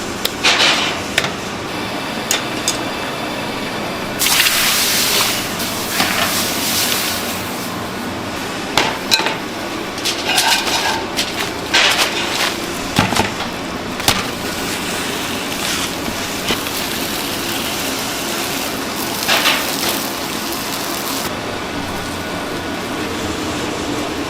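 Food-shop kitchen work: scattered clinks and knocks of utensils and containers over a steady background hum, with a few bursts of hissing, the longest starting about four seconds in and lasting about three seconds.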